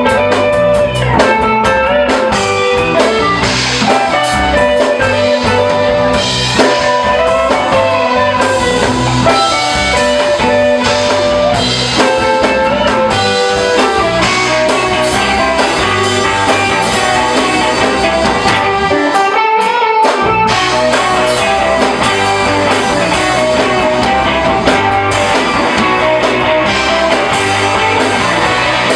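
Live rock band playing an instrumental passage without vocals: guitar lines over bass and drum kit. The bass and drums drop out for about a second around two-thirds of the way through, then come back in.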